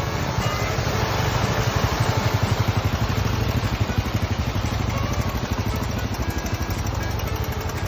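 Small motorcycle engine idling with a fast, even low pulse, over the steady rush of a shallow stream.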